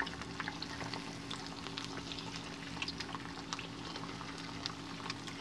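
Eggs frying in hot oil in a pan: a steady sizzle with scattered crackling pops, over a low steady hum.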